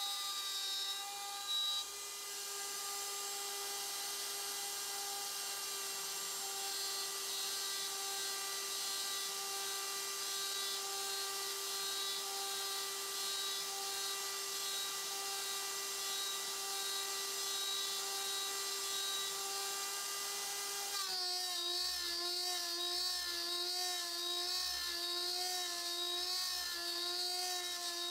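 The router spindle of a MillRight Power Route CNC, spinning a Datron single-flute end mill at about 24,000 RPM, gives a steady high whine as it mills a pocket in aluminium. About two-thirds in, the whine starts to waver up and down in pitch as the cutter loads and unloads in the cut.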